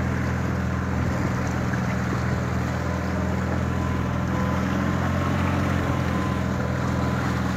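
A boat engine running steadily, an even low drone that holds one pitch throughout.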